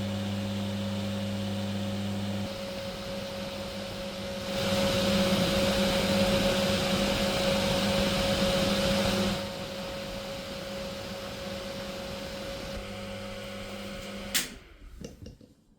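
Small 4-inch microwave cooling fan with a shaded-pole motor running, with a steady electrical hum and a steady higher tone under the rush of air. For about five seconds in the middle the air rush is louder. Near the end a click cuts the power and the fan winds down to silence.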